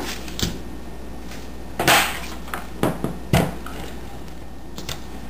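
Layers of cardstock and paper being handled and stuck together on a desk: a few light knocks and a brief papery swipe about two seconds in.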